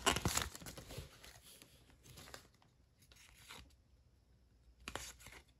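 Foil trading-card pack wrapper crinkling as it is torn open and the cards are pulled out. It fades after about a second into faint rustles of the cards being handled, with a sharper rustle near the end.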